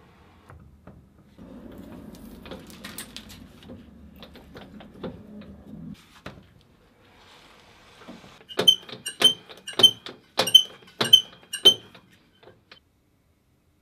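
A steel rod being threaded by hand with a round die in a die stock, the rod held in a lathe chuck. First comes a low scraping grind with small clicks as the die cuts. Later there are six sharp, ringing metal clinks about half a second apart.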